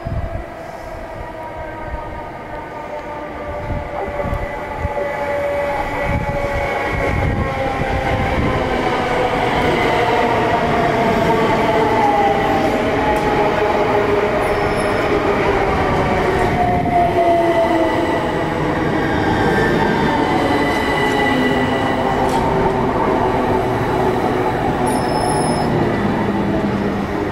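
Electrostar electric multiple unit slowing as it runs through, its traction motors whining in several tones that fall steadily in pitch over a rumble of wheels on rail. It grows louder over the first ten seconds, then stays loud.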